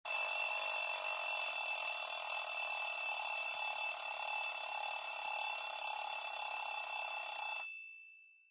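Stock Meizu Flyme AiOS 11 phone tone: a steady sound of a few held high tones over a hiss-like wash, starting at once, running about seven and a half seconds, then fading out quickly.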